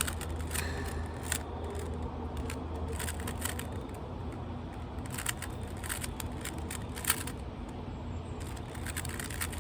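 Rubik's cube being turned fast by hand during a speedsolve: a quick, irregular run of plastic clicks and clacks as the layers snap round, a few louder than the rest, over a steady low hum.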